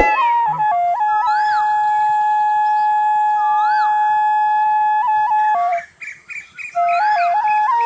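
Bansuri (bamboo flute) ringtone melody: a few quick notes, then one long held note for about four seconds, a brief break, and the tune resumes. Short rising-and-falling chirps sound over it a few times.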